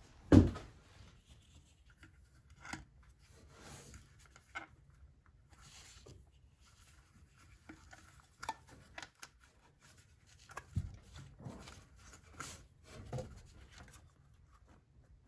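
Scattered light clicks, taps and rubbing as an HEI distributor cap and spark plug wires are fitted by hand on a small-block Chevy, with one louder thump about half a second in.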